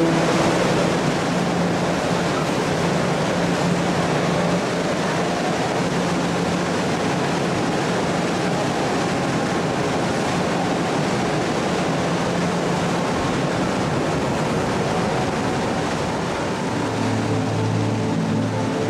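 Staten Island Ferry under way: a steady rushing wash of water and engine noise, with a faint low hum that comes and goes.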